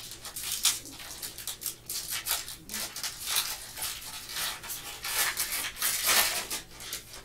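A shiny foil trading-card pack wrapper crinkling and tearing as it is ripped open by hand, a dense irregular crackle that is loudest about five to six and a half seconds in.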